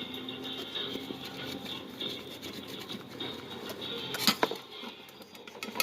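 Small handling and scraping noises at a workbench, with scattered light clicks and one sharp click about four seconds in.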